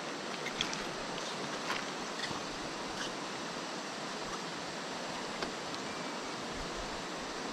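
Steady rush of flowing river water, with a few faint scattered clicks.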